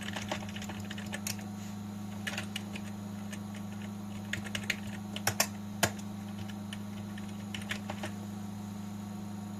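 Computer keyboard keys pressed in scattered single taps and short runs, over a steady low hum that comes on as the PC powers up.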